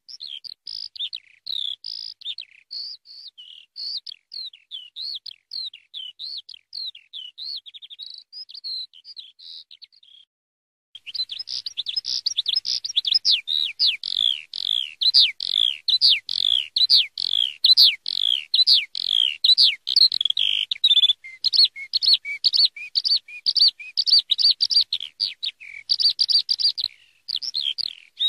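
Eurasian skylark singing its long, unbroken stream of rapid high chirps and trills. The song stops for under a second about ten seconds in, then resumes louder and denser.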